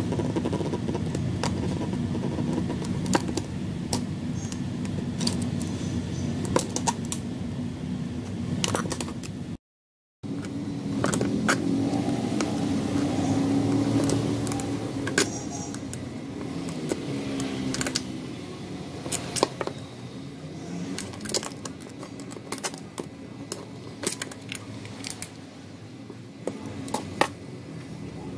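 Scattered sharp metallic clicks and taps from a small metal can being handled, over a steady low rumble. The sound cuts out completely for about half a second about a third of the way in.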